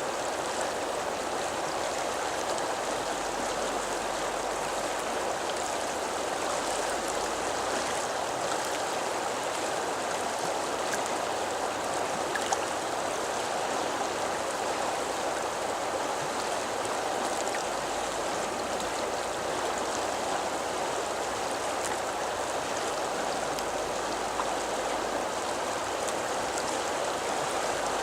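River water flowing steadily, an even unbroken rush of moving water.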